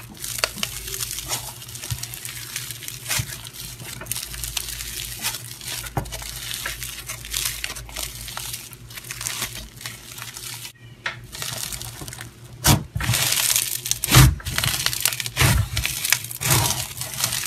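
Hands squeezing, stretching and pressing a fluffy, grainy white slime, giving a dense run of fine crackling and crinkling sounds. It gets louder about two-thirds of the way through, with a couple of sharper pops.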